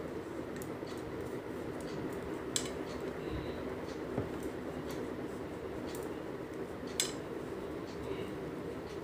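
Metal knitting needles clicking against each other now and then as stitches are worked, the loudest clicks about two and a half and seven seconds in, over a steady low hum.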